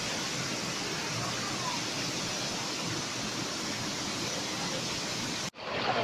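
Steady rush of shallow stream water flowing over rocks, an even wash with no strokes or rhythm, which cuts off abruptly near the end.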